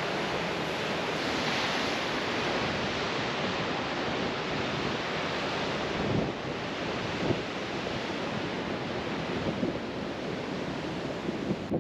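Ocean surf washing against the rocky coast below, with wind buffeting the microphone.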